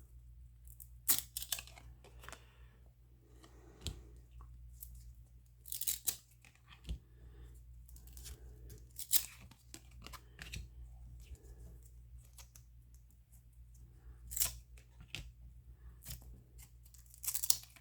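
Baseball card pack wrapper and cards being handled: scattered short scratchy rustles, tears and slides of card stock, with a low steady hum underneath.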